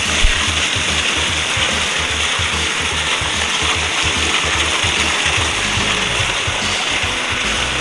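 Waterfall rushing steadily, with background music under it and a single sharp click just after the start.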